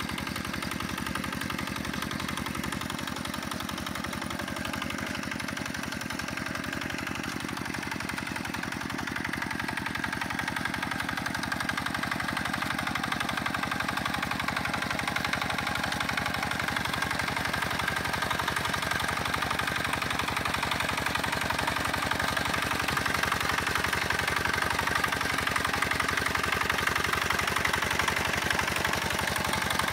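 Single-cylinder diesel engine of a two-wheel walking tractor running steadily under load as it pulls cage wheels through a flooded rice paddy. It grows louder as the tractor comes closer over the second half.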